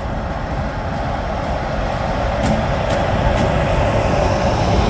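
Electric freight locomotive approaching and passing close with its train, a steady rumble and running noise that grows louder, with a few sharp clicks about halfway through.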